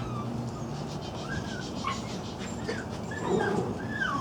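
Small dogs whimpering and whining in several short, scattered whines.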